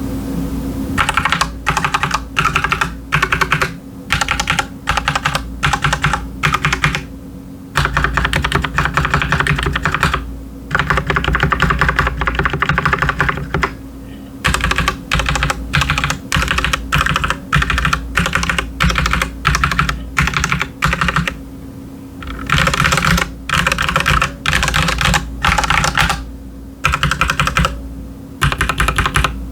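Typing on an Akko 3098S mechanical keyboard with linear red switches and ASA-profile PBT keycaps: quick runs of keystrokes in bursts of one to three seconds, broken by short pauses.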